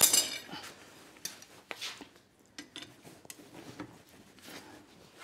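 Scattered light metallic clinks and taps of blacksmith's tongs and steel being handled at a post vise. The loudest is a short clatter right at the start.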